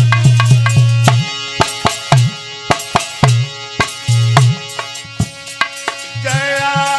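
Tabla playing a rhythm of sharp strokes and deep resonant bass strokes under a sustained melodic accompaniment; about six seconds in a wavering melody line joins in.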